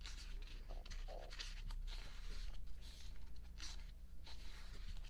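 Glossy photobook pages being turned and handled: several soft paper rustles and slides with a few light clicks, over a steady low hum.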